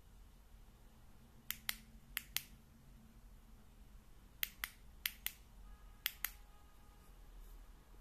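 Tail clicky switch of a Convoy M26C flashlight pressed and released five times, each press a sharp pair of clicks about a fifth of a second apart, switching the light on and off.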